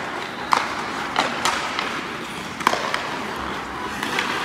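Ice hockey game in a rink: a steady hiss of skates on the ice, with about five sharp clacks of sticks and puck.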